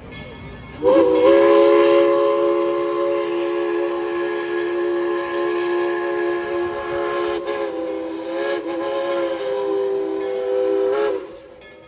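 Steam locomotive whistle blowing one long chord blast of about ten seconds, several notes sounding together. It starts about a second in, wavers slightly partway through, and cuts off near the end.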